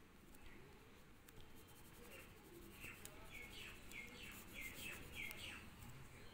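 Faint rubbing of oil pastel on paper in short strokes, with a run of about five short high chirps, evenly spaced, in the second half.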